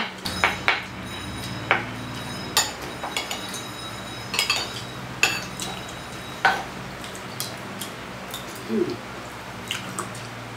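Eating with spoons: scattered small clicks and taps of cutlery on quail eggs, food and a wooden board, over a steady low hum.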